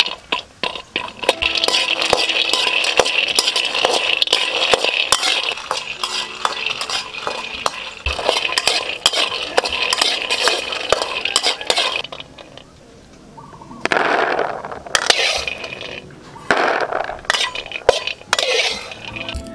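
Peanuts being dry-roasted in a metal wok, stirred with a metal spatula: a dense rattle and scrape of nuts and spatula against the pan. About twelve seconds in it stops briefly, then comes back in several shorter bursts.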